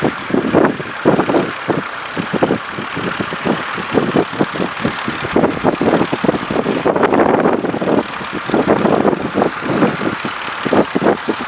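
Ford 4000 tractor engine running steadily under load while pulling a two-furrow plough, its level rising and falling unevenly.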